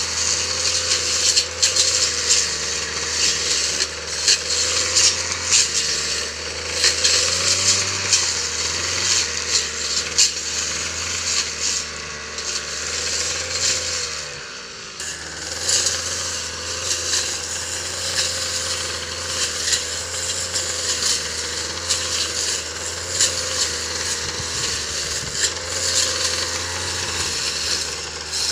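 Engine-driven brush cutter running at high speed, cutting grass, with a steady wavering engine note and frequent small ticks of cut material. About halfway through, the engine is eased off briefly, its note dropping, then brought back up to speed.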